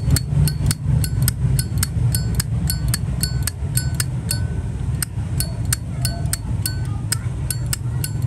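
Zippo lighter lid flicked open and snapped shut over and over, about three metallic clicks a second, each with a short bright ring, the lighter's 'sound' being shown off. A steady low rumble runs underneath.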